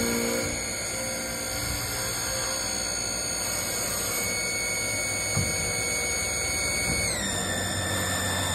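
Automatic wood lathe running, its spindle turning a long wooden dowel as the cutter peels off shavings: a steady noisy cutting sound with high whines that step down slightly in pitch about seven seconds in.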